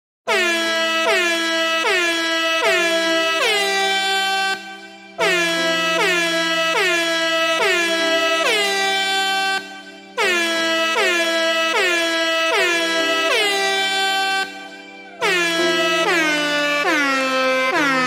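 Air horn sound effect: rapid blasts of about two a second, each sliding down in pitch at its start, in runs of four to five seconds broken by short dips, over steady low held notes.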